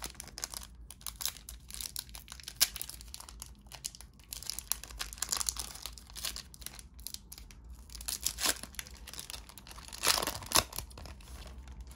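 Foil trading-card pack wrapper being torn open and crinkled, with irregular crackling and several louder rustling bursts as the pack is handled and the cards slid out.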